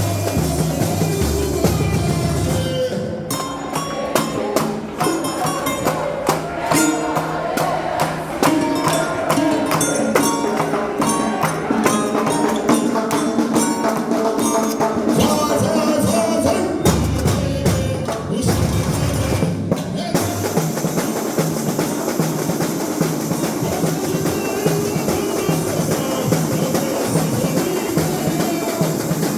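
Samba school percussion section (bateria) playing samba, with tambourines and drums striking throughout. The deep bass-drum beat drops out about three seconds in, returns for a few seconds from about seventeen seconds, and comes back near the end.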